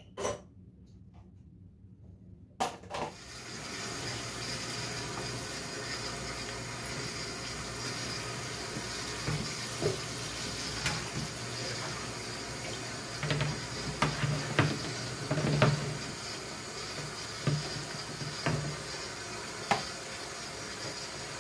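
Kitchen faucet running into a stainless steel sink while dishes are washed by hand, starting about three seconds in, with scattered knocks and clinks of plastic and dishes against the sink. A couple of sharp knocks come at the start, before the water.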